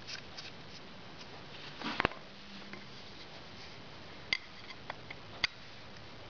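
Scattered small clicks and taps of a screwdriver and fingers on a Harley Sportster carburetor body as a jet is unscrewed. The loudest is a knock about two seconds in, followed by a few crisp ticks later on.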